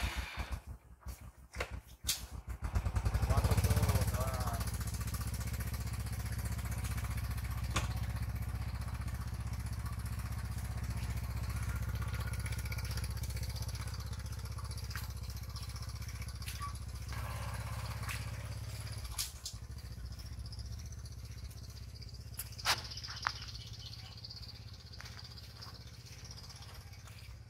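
Small motorbike engine starting with a few quick pulses, revving up briefly about three seconds in, then running steadily as the bike rides off. The engine sound fades gradually over the last several seconds as it moves away.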